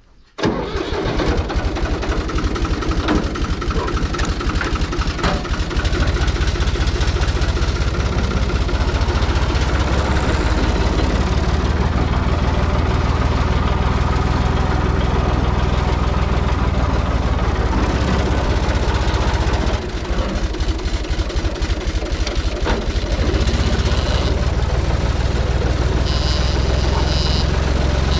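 Farm tractor engine starting right at the beginning and then running steadily, with a brief drop in level about twenty seconds in.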